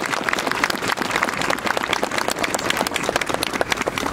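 Crowd applauding: many hands clapping in a dense, irregular patter.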